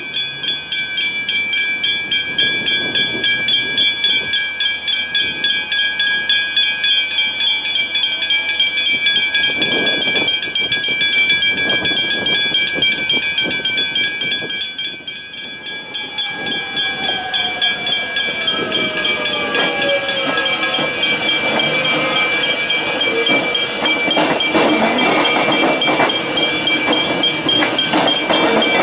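Level crossing bells ringing in a steady rapid rhythm, about two to three strikes a second. From about halfway an electric suburban train comes in, giving a falling whine as it slows. Its wheel and rail noise grows loudest near the end as it passes over the crossing.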